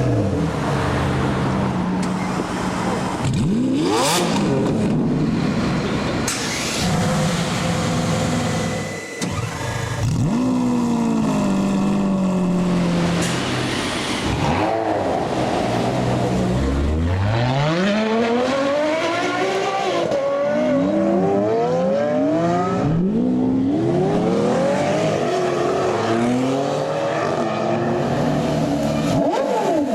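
Supercar engines revving and accelerating hard, the pitch climbing and falling again and again as they run up through the gears, with several abrupt changes from one car to the next.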